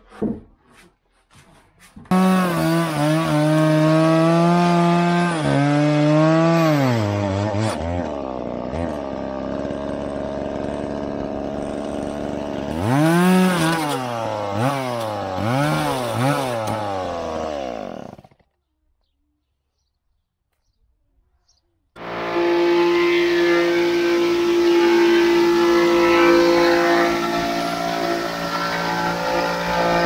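Chainsaw cutting into a wooden beam, its revs rising and falling several times before it cuts off suddenly. After a few seconds of quiet, a different steady machine sound starts and runs at an even pitch.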